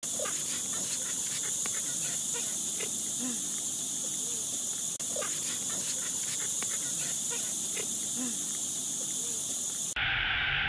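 Steady high insect buzzing, like cicadas, with short squeaky animal calls scattered through it; the same stretch of sound plays twice over, and the sound cuts off sharply near the end.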